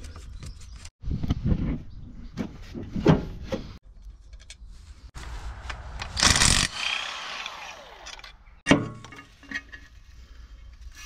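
Metal clunks and knocks of work on an engine, then a short loud burst from a cordless driver undoing a bolt on a Land Rover 200Tdi's intake manifold, its whine falling away as it winds down. A sharp knock follows about three-quarters of the way in.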